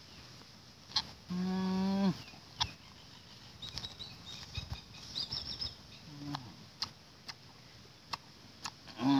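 A single steady, pitched animal call lasting under a second, then a shorter, fainter call a few seconds later, with scattered clicks and high chirps.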